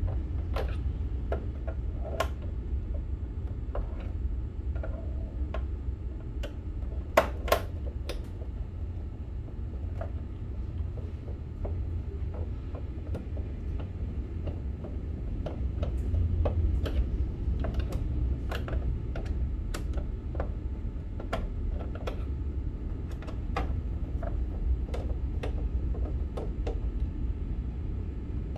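Scattered light clicks and ticks of hand tools and plastic parts as a water ionizer's casing is taken apart, with two sharper clacks about seven seconds in. A steady low rumble runs underneath.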